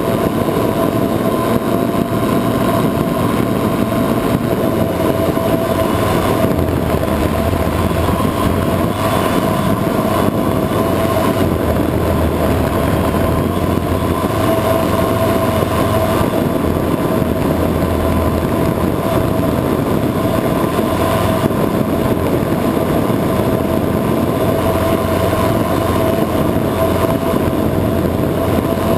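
Multirotor drone's electric motors and propellers in flight, heard from the camera on the craft: a loud, steady buzzing hum over a rush of wind and propeller noise, its pitch shifting only slightly.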